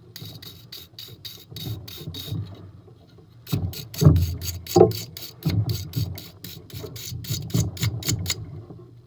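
Brush scrubbing a propane furnace burner in quick back-and-forth strokes, about four a second, with a pause of about a second after the first few strokes and a couple of heavier knocks about four seconds in. The strokes are cleaning out soot buildup that was blocking flame carryover between the burners.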